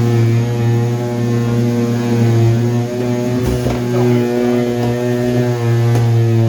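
A steady, loud electric hum with an unchanging pitch, like a motor running at constant speed.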